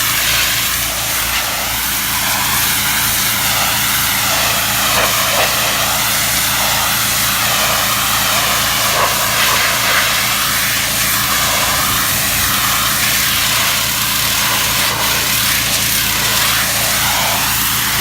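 A pressure washer's engine running steadily, with the loud hiss of the high-pressure water spray over it.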